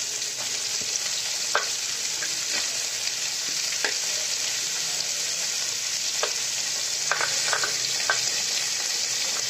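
Chopped carrots and green beans sizzling in hot oil in a wok: a steady frying hiss with a few faint clicks here and there.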